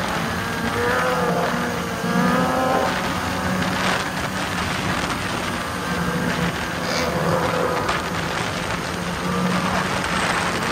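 A pack of motorcycles running at highway speed, engines droning steadily while some rise and fall in pitch as riders work the throttle, over a steady rush of wind.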